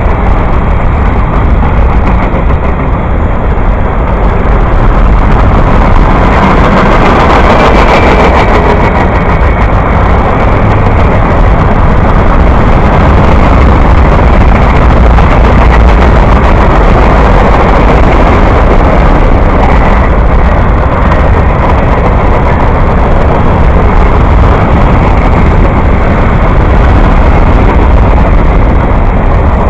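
Freight cars of a long mixed freight train (tank cars, covered hoppers, boxcars) rolling past close by: a steady, loud rumble of steel wheels on the rails.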